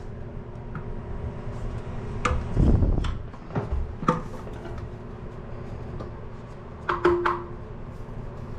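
Toilet tank parts being handled while the old flapper is pulled out: a few sharp plastic and porcelain clicks and knocks, the loudest a dull thump about two and a half seconds in, over a faint steady hum.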